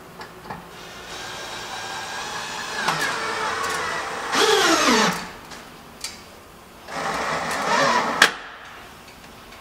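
Cordless drill-driver driving screws through a window frame into the wooden framing. The motor whines in two runs, its pitch dropping as the screw bites in under load, and the second run ends in a sharp click just after eight seconds in.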